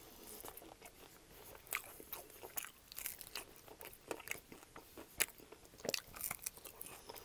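Close-miked eating: biting and chewing the meat off an extra-crispy air-fried chicken wing bone, as scattered crunches and clicks, a few sharper ones about two and five to six seconds in.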